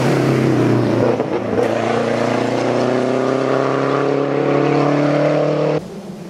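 Lancia Delta Integrale rally car's turbocharged four-cylinder engine at full throttle, its note climbing steadily for several seconds as the car accelerates. Near the end the engine sound cuts off suddenly, leaving a much fainter sound.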